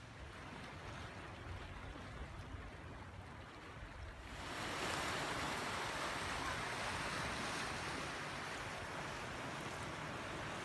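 Sea water washing with no speech or music: a soft wash of surf at first, then, about four seconds in, a louder steady wash of small waves lapping against the rocks of a stone breakwater.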